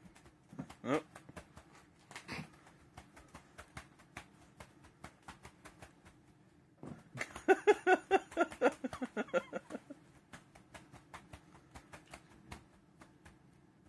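A litter of kittens scampering and landing on a carpet mat as they leap at a wand toy: many small, irregular taps and soft thumps. A person's voice joins briefly in the middle, about seven to ten seconds in.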